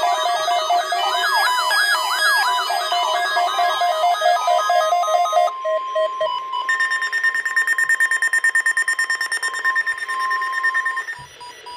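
Weather radio receivers sounding electronic alert alarms together in fast warbling, stepping beep patterns. About halfway through, the NOAA weather radio warning alarm takes over: a steady electronic tone with rapid pulsed beeping over it. The alarms cut off about eleven seconds in.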